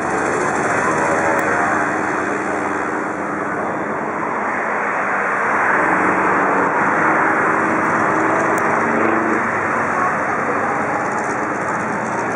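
Piston engine and propeller of a single-engine aerobatic monoplane running at high power through manoeuvres, its pitch shifting up and down and growing a little louder about halfway through.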